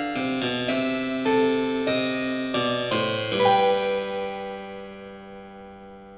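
Background music: a series of chords, the last one about three seconds in left to ring and fade away.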